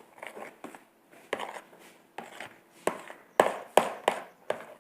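A utensil clicking and knocking irregularly against a container while slime with a lot of foam is mixed, with two louder knocks a little past the middle.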